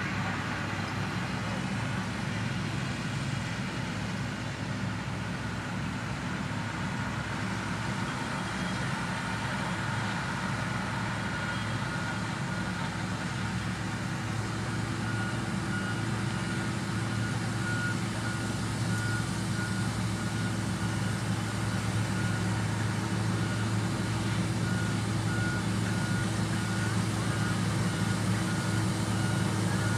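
Diesel engine of heavy road-construction machinery running steadily. About halfway through, a reversing alarm starts beeping in a regular pattern, then stops shortly before the end.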